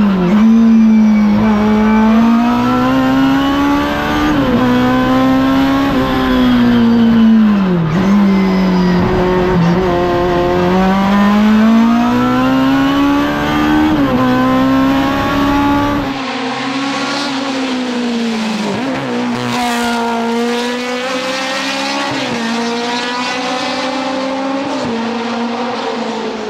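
BMW 320i Group 5 race car's engine at full throttle, heard from inside the cockpit, its pitch climbing and then dropping sharply at each gear change or lift, every few seconds. About two-thirds of the way through it gives way to a race car engine heard from the roadside, revving up and down through the bends.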